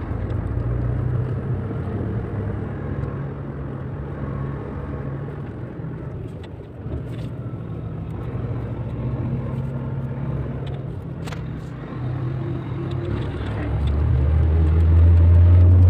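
Volvo truck's diesel engine running with a steady low drone, which grows louder near the end.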